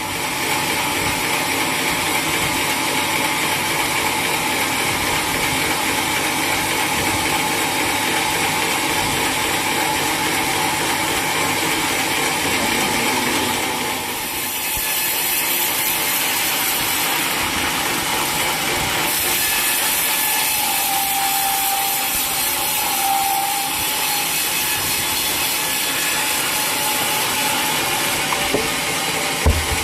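Sawmill machinery running steadily with a dense mechanical rattle as a saw works through a large teak log; the sound changes about halfway through, and a short knock comes near the end.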